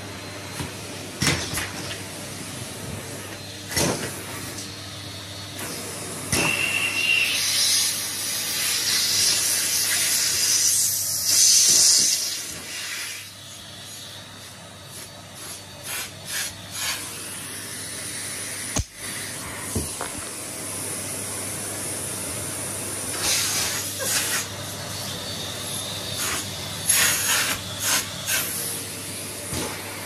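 Numatic Henry cylinder vacuum cleaner running with a steady motor hum and a rushing suction hiss that swells louder and eases off as the hose and wand are moved, twice growing loud for several seconds. Short clicks and knocks sound here and there over it.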